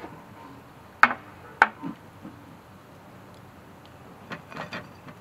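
Two sharp clinks of kitchenware against an iron wok about a second in, half a second apart, then a light clatter near the end as balls and sliced items are tipped off a plate into the simmering broth.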